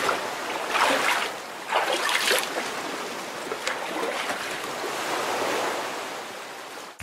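Whooshing, surf-like rushing noise of a logo-animation sound effect, swelling three times in the first couple of seconds and then slowly fading out.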